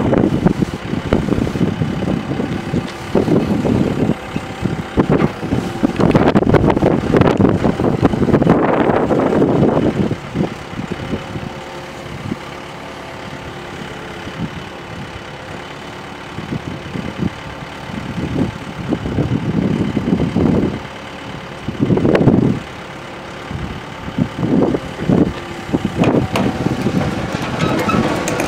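Hitachi EX75US-5 excavator's diesel engine running while the boom, arm and bucket are worked, rising in loud surges under hydraulic load between steadier, quieter stretches, with clanking and rattling from the working machine.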